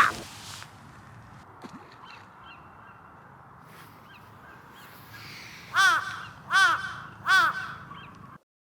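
A crow cawing three times in quick succession, each caw a harsh arched call, over quiet outdoor background.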